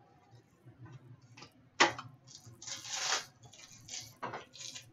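A trading card pack wrapper being torn open and the cards handled: a sharp snap a little under two seconds in, then a stretch of crinkling and a few short rustles.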